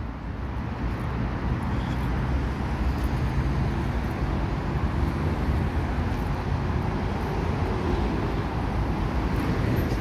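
Steady road traffic noise from a busy main road: a continuous rumble of passing vehicles, growing slightly louder about a second in.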